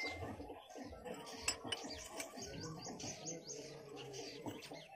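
Quiet ambience of faint bird chirping, with a few light metal clicks as the diesel engine's fuel-pump linkage is handled with a wrench.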